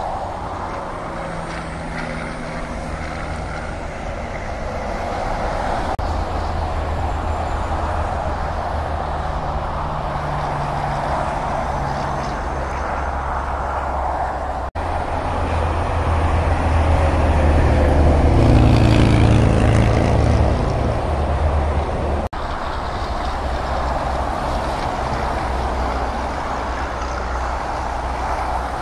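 Steady highway traffic from passing cars and semi-trucks: tyre noise and engine drone. It swells loudest about two-thirds of the way through as a vehicle passes close, and cuts out for an instant twice.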